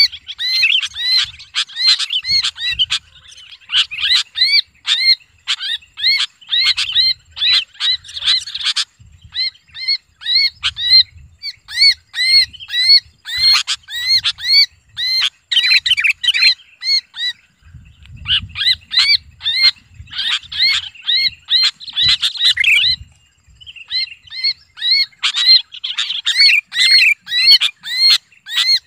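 Sooty-headed bulbul held in the hand, giving a rapid string of harsh screaming distress calls, several a second, with a few short pauses, over soft low thumps from its flapping wings. This is the distress scream of a captured bulbul, the sound used to lure other bulbuls in.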